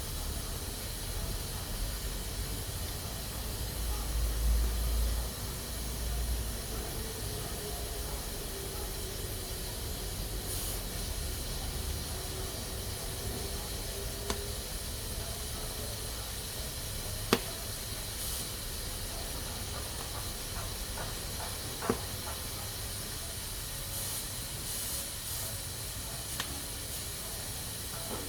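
Pressure cooker hissing steadily as steam escapes through its valve. There is a brief low rumble about four seconds in and two sharp clicks later on.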